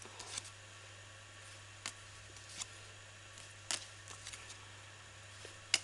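Playing cards being handled and laid down one at a time: scattered short clicks and snaps of card stock, about half a dozen, the sharpest near the end, over a faint steady hum.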